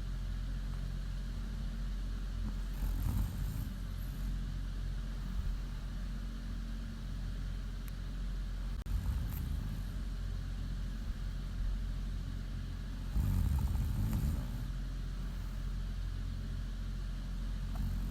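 A woman snoring in her sleep, a louder breath every four to five seconds, over a steady low hum.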